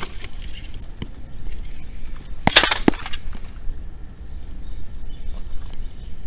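Dry firewood cracking: a few single sharp snaps, then a loud cluster of cracks about two and a half seconds in, over a steady low rumble.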